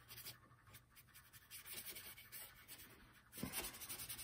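Paintbrush scrubbing oil paint over a mounted linen canvas panel, a faint scratchy rubbing in repeated strokes, with a soft bump about three and a half seconds in.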